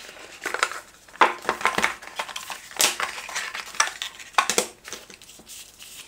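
Product packaging being handled and opened: irregular crinkles, rustles and short clicks of cardboard and plastic wrapping.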